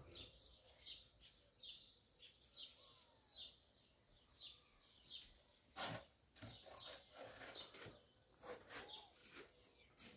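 A small bird chirping faintly, a short high chirp repeated a little more than once a second. A few sharp knocks or clicks come about six seconds in.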